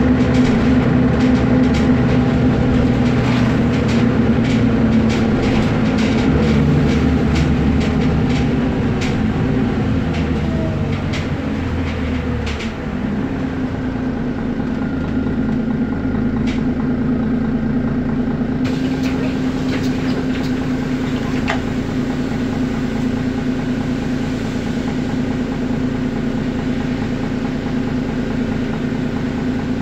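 Mercedes-Benz Citaro O530G articulated bus's diesel engine running under way, with frequent rattles and knocks from the bus body over the first dozen seconds. About halfway through, the engine note falls and the sound settles into a steadier, smoother hum.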